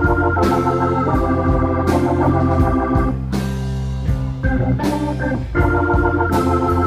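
Live rock band playing an instrumental passage: a keyboard on an organ sound holds chords over electric bass and electric guitar, with sharp accented hits about every second and a half.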